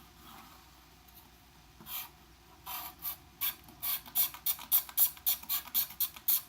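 A kitchen knife blade scraped quickly back and forth across the back of a Sanyo Katana LX flip phone, scratching it. There is one stroke, then a fast run of short rasping strokes, about three to four a second.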